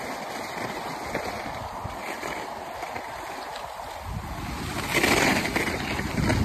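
Skis sliding and scraping over snow with wind rushing over the microphone, a steady hiss that swells louder about five seconds in.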